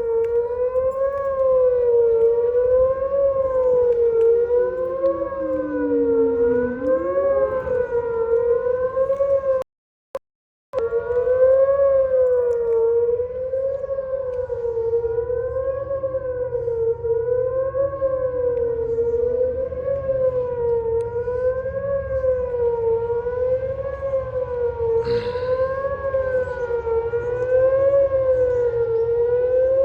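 Outdoor tornado warning sirens sounding in a test. The nearest siren gives a loud wail that rises and falls in pitch about once a second, while a fainter siren slides slowly down in pitch every few seconds behind it. The sound cuts out completely for about a second about ten seconds in.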